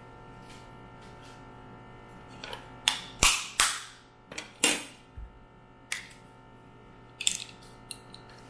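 Spoons striking a steamed mud crab's hard shell to crack it open: a series of sharp cracks and knocks, the loudest cluster about three to five seconds in, with a few more later.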